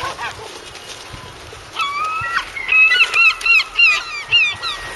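Gull calling: a brief call at the start, a long drawn-out note about two seconds in, then a quick run of about seven short yelping calls, the pattern of a gull's long call.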